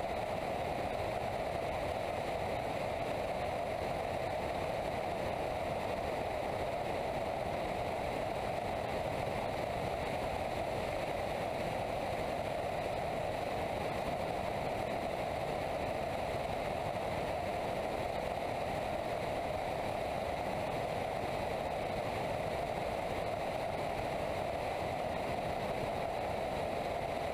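Steady rushing airflow noise in flight, an even unbroken whoosh.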